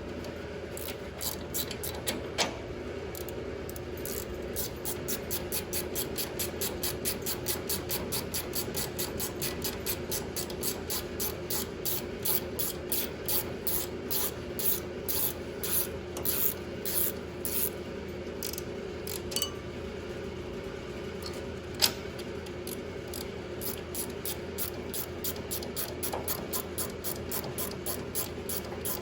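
Rapid, evenly spaced rasping strokes, about three or four a second, with a steady hum underneath and one sharp click about two-thirds of the way through.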